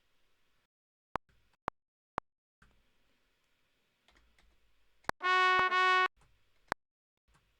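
Software instrument in a DAW playing a brassy, trumpet-like synthesized tone: three short blips about half a second apart, then a loud held note about five seconds in, broken once in the middle, and one more short blip near the end.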